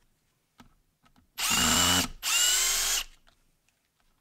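Hilti 12-volt brushless drill driver run in two short trigger pulls of well under a second each, about a second and a half in and again just after two seconds, its motor whine steady in pitch; the first pull has a low rumble beneath the whine.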